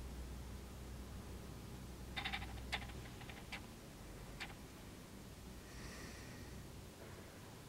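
Faint workshop room tone: a low steady hum that stops about three seconds in, a few light clicks and ticks in the middle, and a faint brief high-pitched sound about six seconds in.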